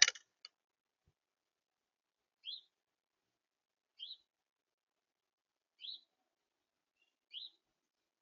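A bird repeating a short, high, rising chirp four times, about every one and a half seconds. A sharp knock sounds right at the start.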